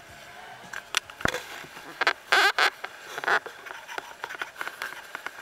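Water splashing and slapping against the bow of a slow-moving boat in irregular bursts, with scattered clicks; the loudest splashes come about two to three and a half seconds in.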